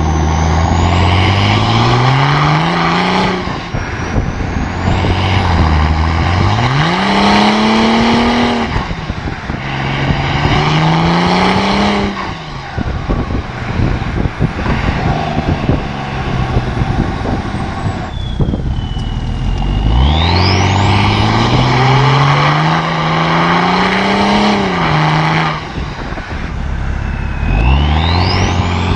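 BMW 335d E90's twin-turbo inline-six diesel accelerating hard through the gears: the engine note climbs steadily and drops back at each upshift, about five times over, with a high whistle rising alongside.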